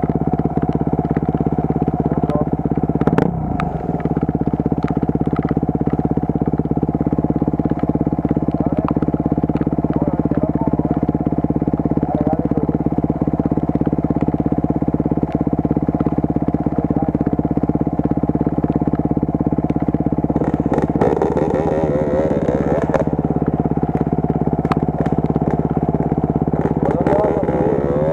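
Enduro motorcycle engine idling steadily at an even, unchanging pitch.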